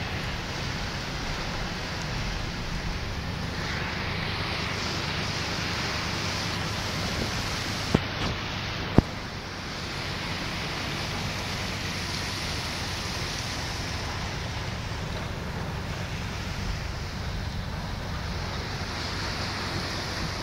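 Steady hiss of heavy rain and tyres on a waterlogged road, heard from inside a moving vehicle. Two sharp clicks come about a second apart, roughly eight seconds in.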